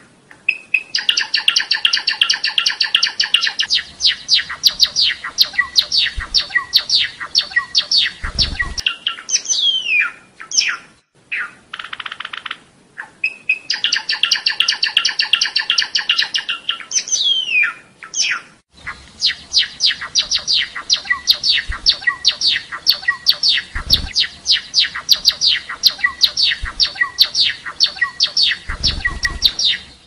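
Java sparrow singing: long runs of rapid, clicking chip notes at several a second, broken by two short pauses and a few falling whistled glides. A few dull low thumps sound under the song.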